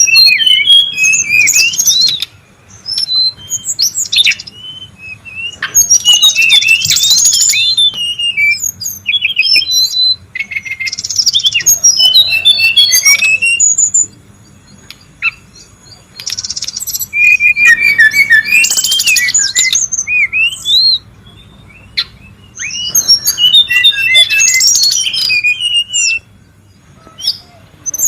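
Brown-chested jungle flycatcher calling excitedly in loud phrases of fast chattering, chirps and whistled notes, broken by short pauses.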